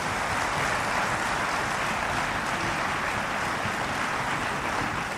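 Applause from members of parliament, a dense steady clatter of many hands that thins out near the end.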